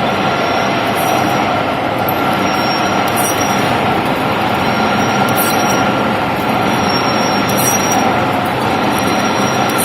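Metal lathe turning a steel eccentric shaft for a jaw crusher, with a steady, loud cutting noise and a held high tone. A faint high tick repeats roughly every two seconds.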